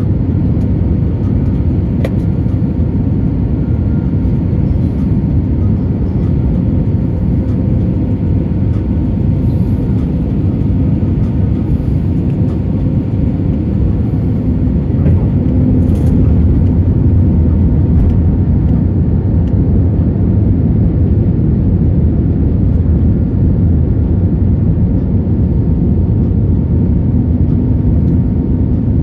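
Steady cabin noise of a jet airliner descending on approach to land: low engine and airflow rumble heard from a seat over the wing, a little louder from about halfway on.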